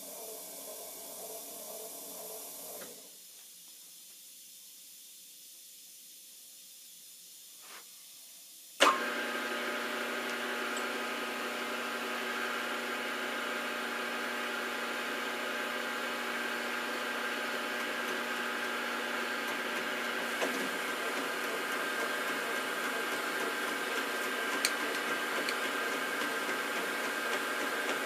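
Milling machine spindle motor: a quieter running sound dies away about 3 seconds in, then the motor switches on with a sharp click about 9 seconds in and runs steadily with a whining hum to the end.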